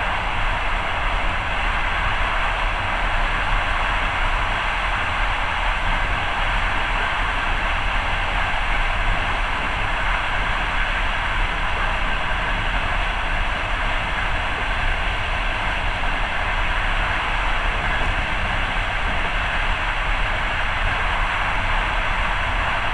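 Passenger train running at a steady speed, heard from inside the carriage: a continuous, even rumble of wheels on the rails.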